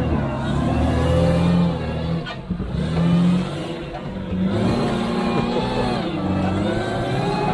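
Unimog 404's petrol straight-six engine labouring as the truck climbs over a sand mound, its pitch rising and falling as the throttle is opened and eased, with a brief dip about two and a half seconds in.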